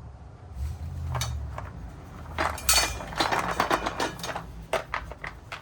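Small metal washers and bolts clinking and rattling as they are handled, a run of light metallic clinks that is densest and loudest about halfway through.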